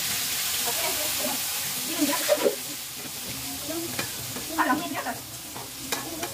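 Food frying in hot oil in a pan, a steady sizzle, with a few light clicks of a cooking utensil against the pan.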